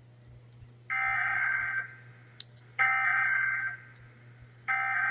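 Emergency Alert System SAME header: three bursts of digital data tones, each just under a second long and about a second apart. This is the coded header that opens the Required Monthly Test.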